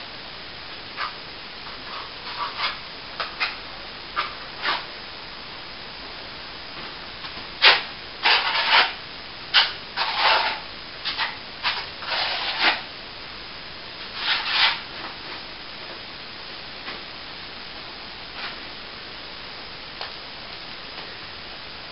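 Hand-sanding of plaster: short, irregular strokes, with a busier run of them about eight to thirteen seconds in and another around fourteen seconds.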